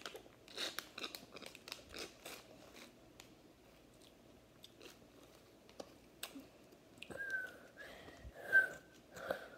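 Crunching and chewing of a chip loaded with very hot sauce, then a few short, high, whistly breaths through pursed lips near the end as the mouth burns from the spice.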